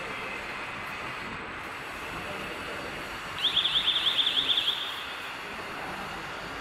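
Conveyor metal detector's alarm sounding: a rapid run of about eight falling electronic chirps, some six a second, for about a second and a half as a box passes through the detector head, signalling that it has sensed metal. A steady machine hiss of the running conveyor lies underneath.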